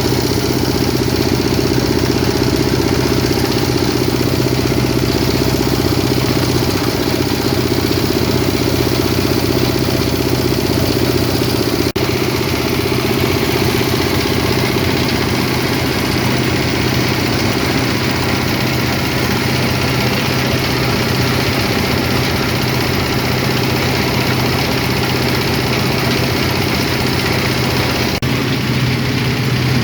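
Coconut husk chipping machine running steadily, a constant loud mechanical hum.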